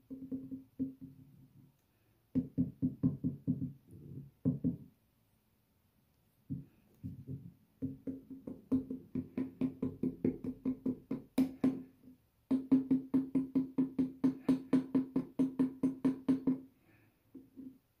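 A plastic Roomba s9+ dustbin knocked rapidly against the rim of a glass jar to shake powder out, in bursts of about five knocks a second with short pauses between them.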